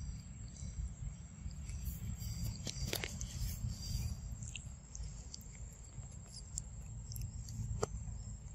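Baby macaque chewing and biting a soft ripe banana close to the microphone: scattered wet mouth clicks and smacks, the sharpest about three seconds in and just before the end, over a steady low rumble.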